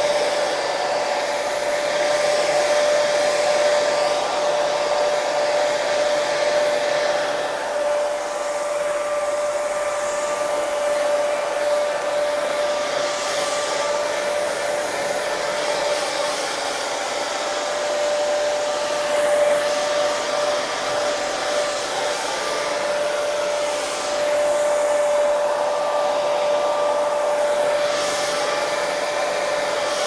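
Hair dryer running continuously: a steady rush of air with a constant whine from the motor.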